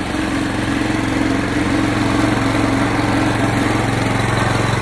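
Honda gas engine of a pressure washer rig running loudly and steadily.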